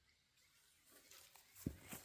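Near silence, then faint footsteps on the ground starting about a second in, with a couple of soft thuds near the end.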